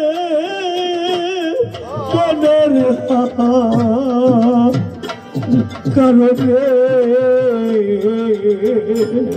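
Bengali Baul folk song performed live: a male voice sings a long wavering held note, then carries on over a harmonium's sustained chords. A hand drum beats a steady rhythm underneath.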